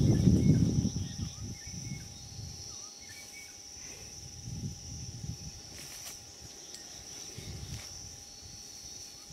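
Baby black rhino scuffling in sawdust: a loud rustle that dies away after about a second, then softer scuffs every couple of seconds. Insects keep up a steady high drone behind it.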